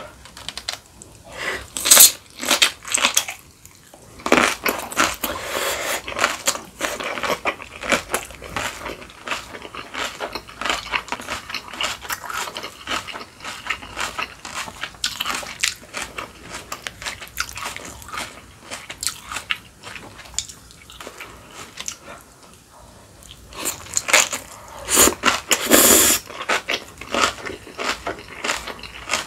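A person biting into and chewing napa cabbage kimchi with rice, with crisp, irregular crunches throughout. The loudest crunches come about two seconds in and again near the end.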